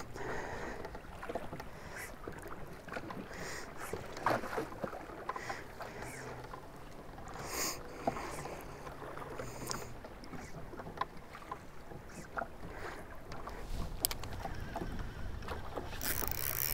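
Small waves lapping and splashing against the hull of a drifting fishing boat, with a few faint clicks and knocks scattered through.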